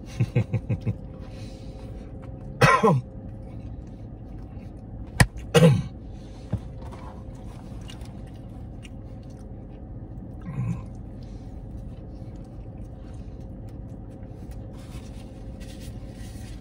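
A man eating a burger with his mouth full, making short throat noises: a quick run of low hums at the start, a cough about three seconds in and another about five and a half seconds in, and a brief grunt near the middle, over a steady low hum.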